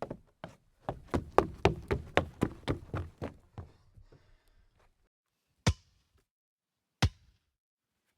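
A rapid, even run of knocks, about four a second, fading away over the first four seconds, then two single sharp knocks more than a second apart.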